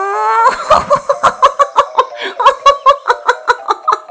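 A cartoon voice holding a note that breaks about half a second in into rapid, high giggling, about six short laughs a second.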